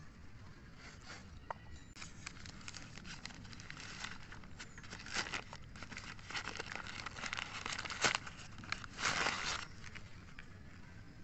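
Newspaper crinkling and rustling in the hands as it is crumpled and unwrapped from a small clay pot. It comes as a run of quick crackles starting about two seconds in, with a loud stretch near the end that stops shortly before the end.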